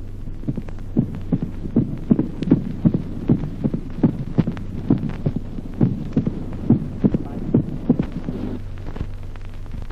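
Recorded heart sounds heard through a stethoscope in sinus rhythm: each beat's second heart sound is followed within a fraction of a second by a sharp mitral opening snap, a short-interval snap typical of mitral stenosis. A steady low hum runs underneath.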